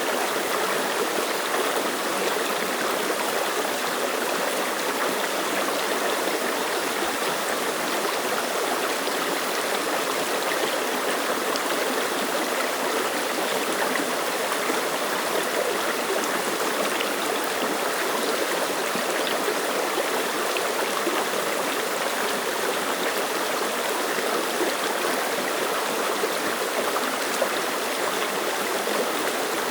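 Clear mountain stream running over rocks, a steady rushing babble of water.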